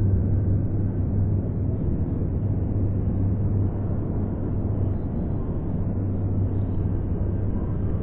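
Steady low outdoor rumble with a constant low hum underneath; no distinct bird call or other event stands out.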